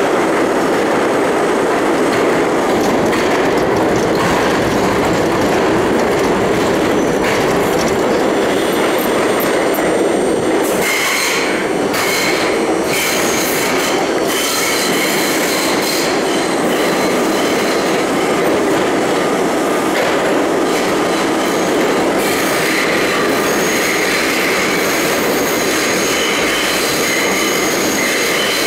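R32 subway train running through a tunnel, heard from inside the car: a steady rumble and rush of wheels on rail. A few sharp clatters come about eleven to thirteen seconds in, and a thin, high wheel squeal rides over the running noise in the last third.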